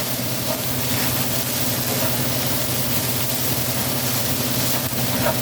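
Green peppers and mushrooms sizzling in a frying pan, under a steady low hum.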